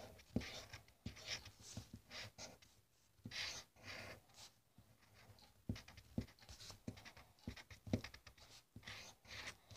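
Faint scratching of a drawing tool on paper in short, irregular strokes, with small taps and brief pauses between them.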